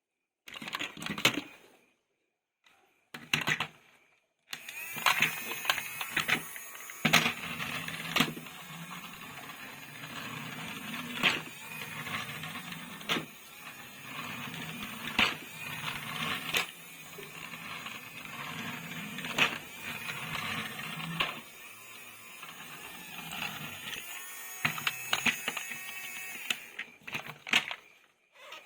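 Plastic toys and packaging being handled: a run of sharp clicks and rattles over a steady rustling noise, which starts about four seconds in and thins back to a few separate clicks near the end.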